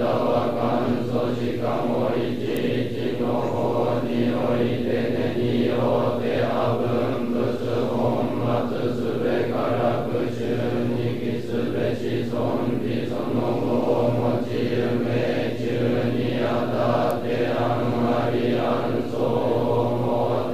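A large group of Sōtō Zen trainee monks chanting a sutra in unison on a steady monotone, the syllables coming in an even, unbroken rhythm.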